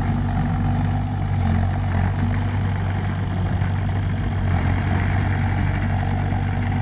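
Excavator's diesel engine running steadily at a constant pitch.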